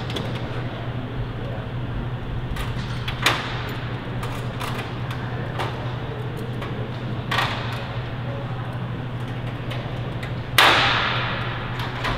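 Small metal clicks and clinks of clecos being fitted with cleco pliers into an aluminium skin, with three louder metallic clatters that ring briefly, the loudest about ten and a half seconds in. A steady low hum lies underneath.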